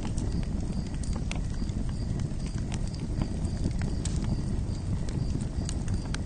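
Campfire crackling: a steady low rumble of burning wood with irregular sharp pops and snaps.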